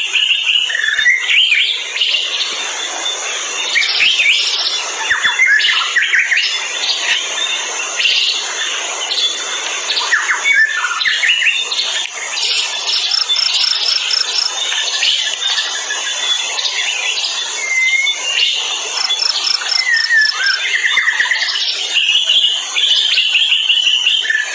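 Forest birdsong: many birds chirping and calling at once, with short rapid trills recurring every few seconds, over a steady high insect drone.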